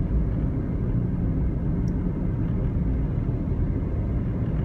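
Steady low rumble of a car driving at highway speed: road and engine noise heard from inside the cabin.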